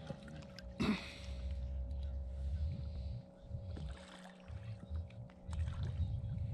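Water lapping against a small fishing boat's hull, with a low rumble of wind on the microphone and one brief sharp noise about a second in.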